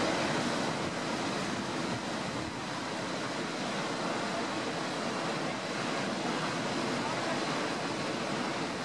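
Vernal Fall, a large waterfall, pouring over its granite cliff: a loud, steady rush of falling water.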